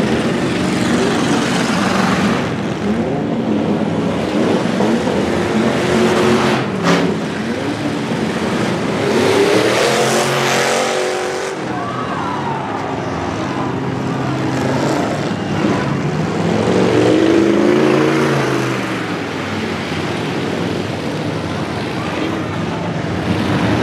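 Several demolition derby trucks' engines revving hard, their pitch climbing and falling as they accelerate and back off, with one sharp impact about seven seconds in.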